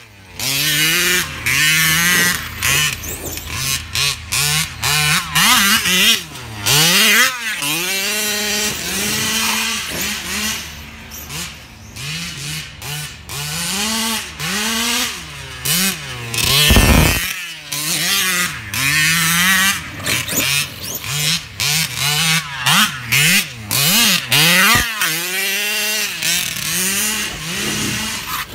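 Two-stroke petrol engine of a large-scale RC buggy revving hard and backing off again and again as it is driven, its pitch rising and falling every second or so, with short lulls to a low idle. A brief loud rush of noise cuts in about two-thirds of the way through.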